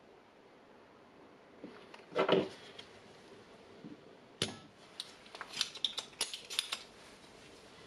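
Desoldering on a battery BMS board. There is a soft clatter about two seconds in. A spring-loaded desoldering pump fires with a sharp snap near the middle, followed by a quick run of small clicks and taps.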